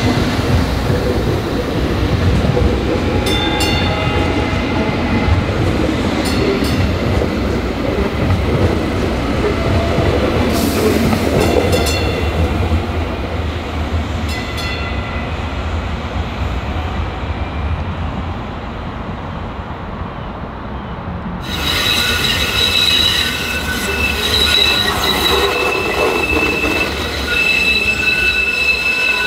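DART light rail trains running through a track junction: low running noise with a few sharp clicks of wheels over the switches and crossings, then, about two-thirds in, a steady high-pitched squeal of wheels on the curve.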